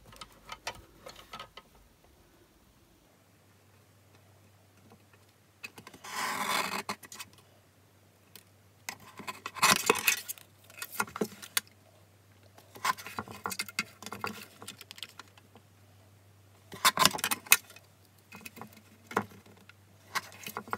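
Guillotine paper trimmer at work: the plastic blade arm clacking up and down and slicing through a thin sentiment strip, with paper being shifted on the base. It comes as several short bursts of clicks and scrapes, the loudest a scrape of about a second some six seconds in.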